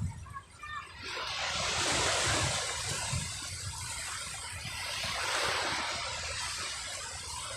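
Sea waves washing in, a rush of surf that swells twice and falls back.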